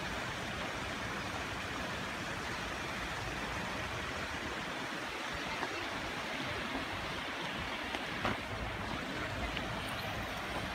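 Steady rushing noise of water churned by fish-pond paddlewheel aerators, with a brief knock about eight seconds in.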